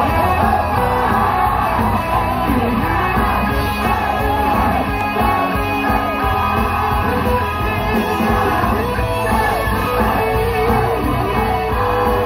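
An amplified J-pop idol song played through the stage PA, with a group of young women singing together.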